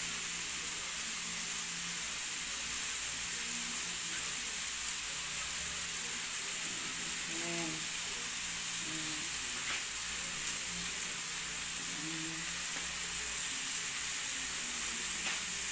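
Steady sizzling of shredded vegetables frying in a hot stainless steel pan on a gas stove.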